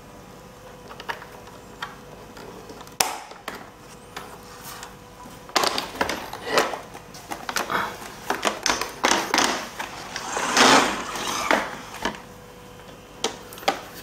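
Plastic parts of a Xiaomi Mi Robot Vacuum Mop 2S being handled and fitted, with the side brush going onto the robot: scattered clicks and knocks, one sharp click about three seconds in, then a busier run of clicks and a scraping rustle from about six to twelve seconds in.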